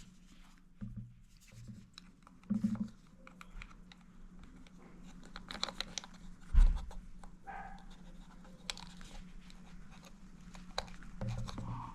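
Handling noise of a small plastic camera and its power cable: scattered light clicks and scratching, with one dull thump about six and a half seconds in, over a faint steady hum.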